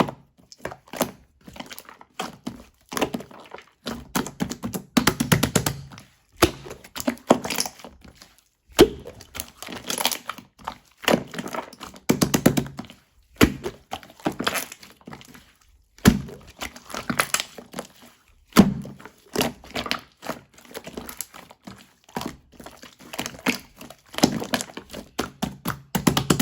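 Slime being kneaded and pressed by hand, making clusters of sticky clicking and popping sounds that come in bursts with short pauses between.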